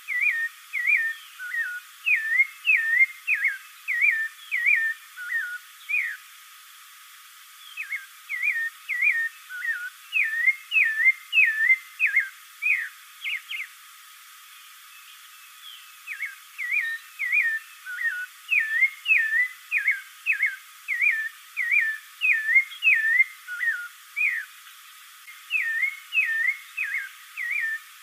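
Spectacled thrush (caraxué, Turdus nudigenis) singing: runs of short whistled notes, about two a second, with two brief pauses between the runs.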